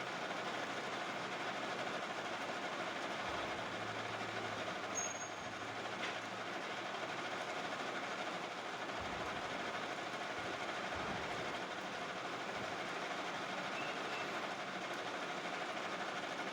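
Metal lathe running steadily while turning a pulley, an even mechanical hum and hiss.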